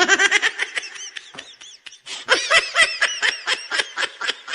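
High-pitched giggling laughter, a rapid run of quick 'hee-hee' syllables, about five a second. It comes in two runs, fading after about a second and a half and starting again louder about two seconds in.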